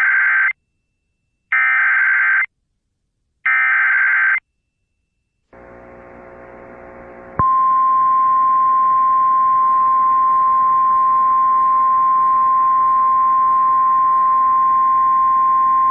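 Emergency Alert System SAME header over the radio: three short bursts of warbling digital data tones, about a second each, followed about seven seconds in by the steady single-pitch National Weather Service 1050 Hz warning tone, held for about nine seconds, signalling a weather warning broadcast.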